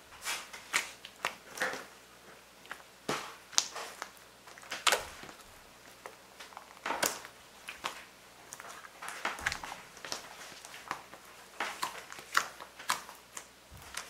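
Hands pressing, kneading and stretching a glossy green slime, making irregular sticky clicks and wet pops, a few each second.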